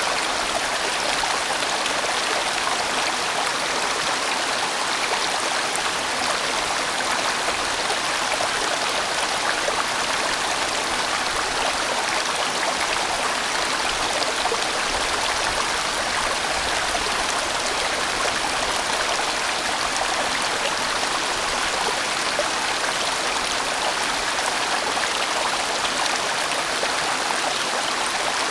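A fairly large mountain stream running steadily over rocks, a constant rushing of water with no breaks.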